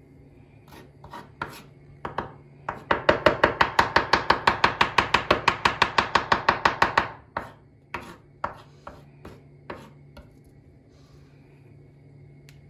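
Kitchen knife mincing garlic on a cutting board. A few separate chops are followed by a fast, even run of chopping at about seven strokes a second lasting some four seconds, then a few more single chops.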